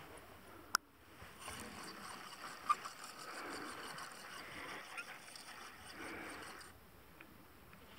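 A sharp click, then a spinning fishing reel being cranked for about five seconds, a steady whirring that stops abruptly.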